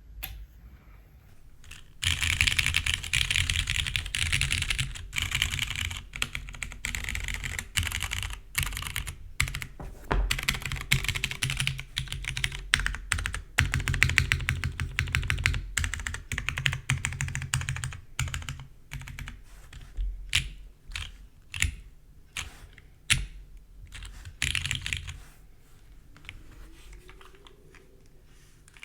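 Fast typing on a Cruel World CW88 mechanical keyboard with tactile Hyperglide MX Brown switches (stems lubed with 3204, TX springs and films), a polycarbonate plate and gasket mount. Rapid runs of keystrokes start about two seconds in, thin out to scattered single presses past the middle, and stop a few seconds before the end.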